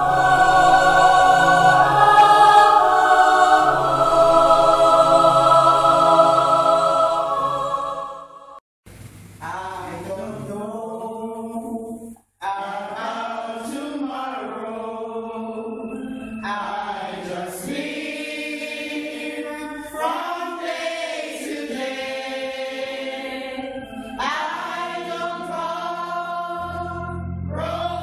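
Loud music for about the first eight seconds, then, after a brief break, a gospel choir singing.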